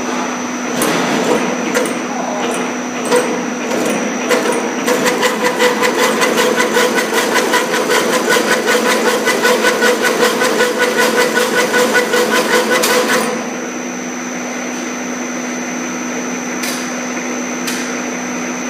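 Double-wire chain link fence machine running: a steady motor hum with scattered clicks, and from about five seconds in a fast, even clatter of about five strokes a second from the weaving mechanism forming the wire spiral, which stops abruptly about thirteen seconds in.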